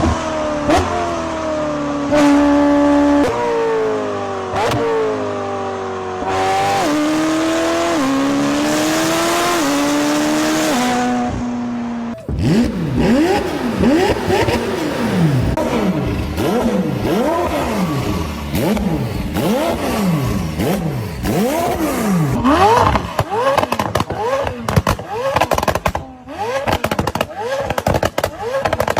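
McLaren twin-turbo V8 engine. It first runs at steady high revs, its pitch stepping up and down. From about twelve seconds in it is blipped in quick revs that rise and fall about twice a second, with sharp exhaust pops and crackles, thickest near the end.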